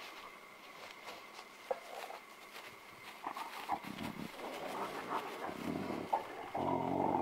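Low animal growling over a contested kill as a spotted hyena closes in on a feeding male leopard, building from about four seconds in and loudest near the end.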